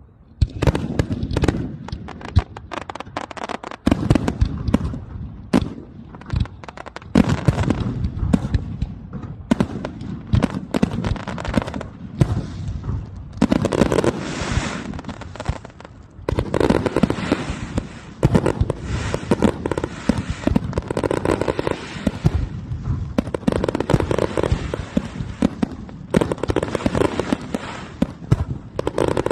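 Fireworks display: many shells bursting in quick succession, loud overlapping bangs mixed with crackle, starting suddenly just after the start.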